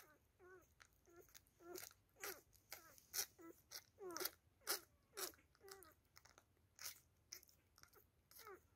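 Newborn beagle puppy suckling on a milk bottle: wet sucking smacks about twice a second, mixed with small squeaky grunts.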